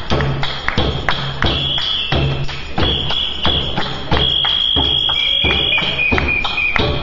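Hand-drum and tambourine percussion beating a steady rhythm of about two to three strokes a second, with long high held notes sounding over it.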